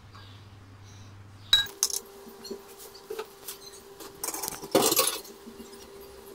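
Clinks and clatter of plates and bowls being handled during the coating of chicken strips: a couple of sharp clinks about one and a half seconds in, scattered lighter ones, and a louder cluster a little before the five-second mark, over a faint steady hum.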